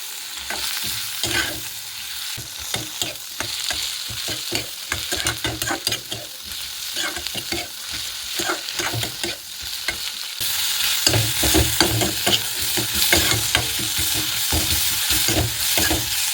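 Curry vegetables and panch phoran frying in hot oil in a pan, sizzling steadily while a utensil stirs and scrapes through them in quick strokes. The sizzle becomes louder about ten seconds in.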